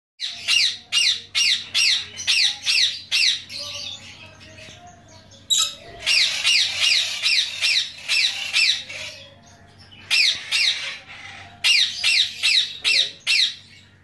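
Lorikeet screeching in four bouts of rapid, high-pitched calls, each call sweeping downward, at about two to three a second, with softer chattering in the short gaps between bouts.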